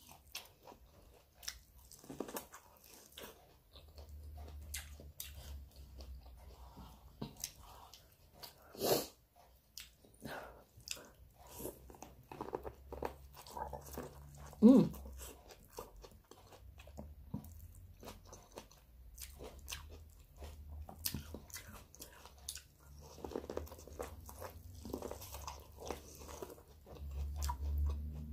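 A person eating a seafood boil: repeated crunchy bites and chewing, with two louder bites about nine and fifteen seconds in.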